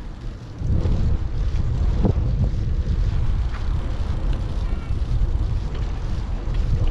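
Wind buffeting a GoPro 8's microphone on a moving bicycle: a low, fluttering rumble that jumps up about half a second in and holds as the bike picks up speed, with a few faint rattles.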